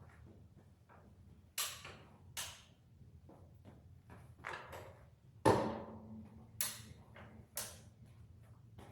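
Sped-up sound of metal clanking as a chisel plow is moved: about five sharp clanks and knocks over a low steady hum, the loudest a little past halfway, with a brief ring after it.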